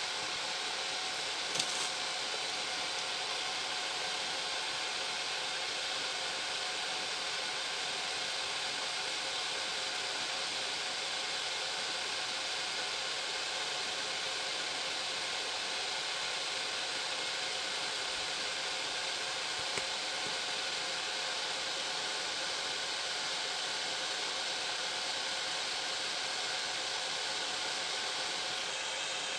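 Steady, unchanging hiss with a few faint steady hum tones under it; a light click about a second and a half in.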